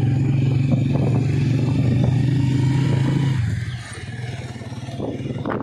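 Motorcycle engine running with a steady low drone that drops away about three and a half seconds in, leaving quieter road noise with some clatter near the end.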